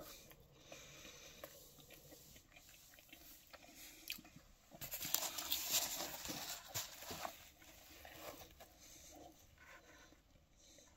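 Close-up chewing of a mouthful of pizza, with a louder stretch of rustling and handling noise about five to seven seconds in as a slice is taken up.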